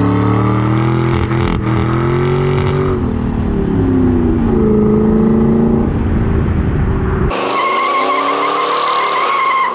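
Car engine revving, its pitch dipping and rising, then about seven seconds in it cuts abruptly to a steady, high tyre squeal.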